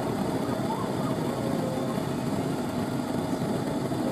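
Gas lampworking bench burner running, with the steady rush of its flame.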